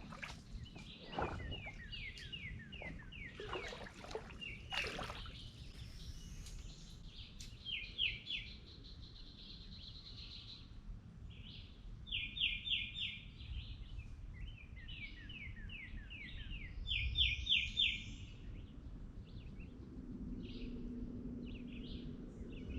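Songbirds singing: repeated quick runs of high chirping notes, several in fast bursts, over a low steady outdoor background rumble.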